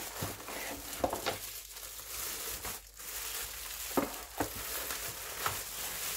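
Clear plastic bag rustling and crinkling as it is pulled and bunched off a keyboard, with a few sharper crackles along the way.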